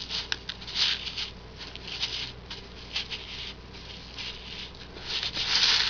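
Loose bird seed rustling and rattling in a plastic Tupperware dish as a chunk of lard is rolled through it: short scratchy bursts with a few small clicks, the longest and loudest near the end.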